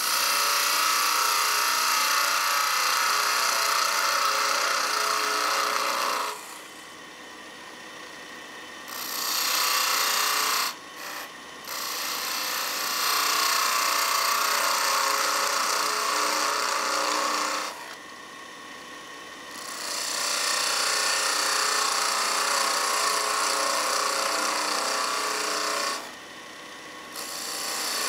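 Turning tool cutting a spinning pine blank on a wood lathe, in several passes lasting a few seconds each, with a short one about ten seconds in. Between cuts the lathe runs on with a quieter, steady hum.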